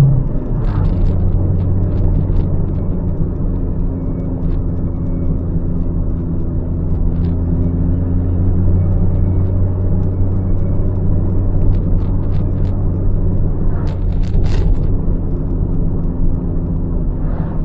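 Car engine at a steady idle through an aftermarket RS-R exhaust muffler with its inner silencer fitted: an even, low exhaust rumble that holds its pitch throughout.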